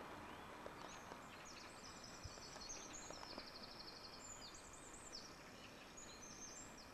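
Faint birdsong: a small songbird singing quick, high-pitched chirping phrases and trills over low outdoor background noise.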